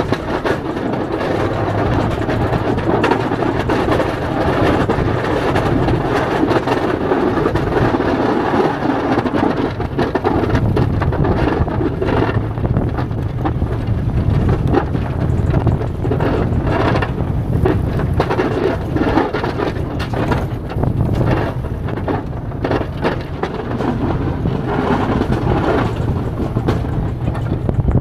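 Snow plow truck driving through snow, with steady engine and tyre noise, wind on the microphone, and frequent irregular knocks.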